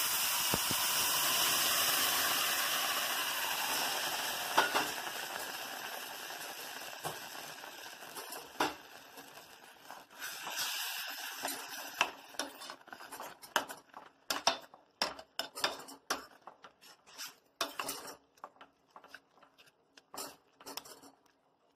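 Boiled milk poured onto hot ghee-toasted bread pieces in a steel pan, sizzling strongly at first and dying away over about ten seconds. Then a perforated steel skimmer stirs the mixture, clinking and scraping against the pan in quick irregular knocks.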